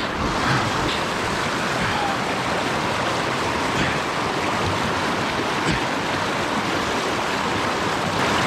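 Steady rushing of a creek's running water, with a few faint knocks.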